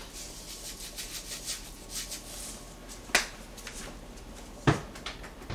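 Small kitchen handling sounds at the counter: light rustles and taps, with two sharp clicks about three and four and a half seconds in, the second the loudest.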